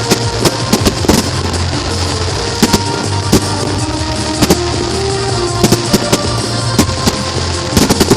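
Fireworks going off in irregular sharp bangs and crackles, some in quick clusters, over loud music.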